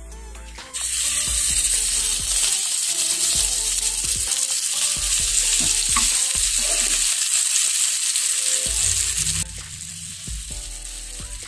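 Masala-coated katla fish pieces sizzling in hot oil in a small frying pan as they are laid in with a spoon. The sizzle starts suddenly about a second in, holds loud and steady, and drops to a quieter sizzle near the end.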